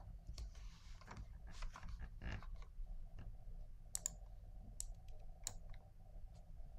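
Faint scattered clicks of a computer mouse being used at a desk, a few sharper clicks near the middle, over a low steady room hum.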